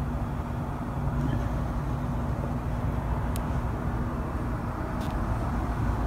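Distant city traffic heard from high above, a steady low rumble with a constant hum running through it. Two faint ticks about three and five seconds in.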